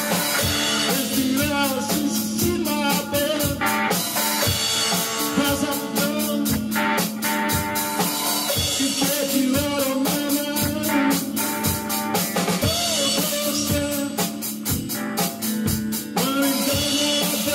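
A live rock band playing an instrumental passage: a drum kit keeps the beat with kick, snare and cymbals under electric guitar.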